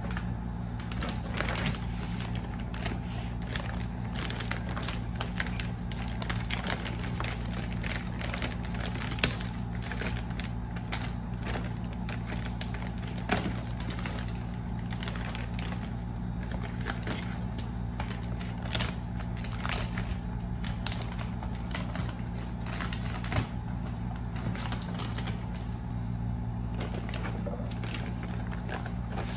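Clear plastic bag crinkling and rustling as hands handle it and pull it off a cardboard shipping box: a steady run of small sharp crackles with a few louder snaps. A steady low hum runs underneath.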